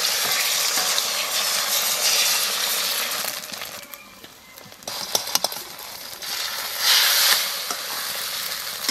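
Beaten egg sizzling in hot oil in a steel kadai, loud at first, easing off about four seconds in, then picking up again. From about five seconds in, a metal spatula clinks and scrapes against the pan a few times.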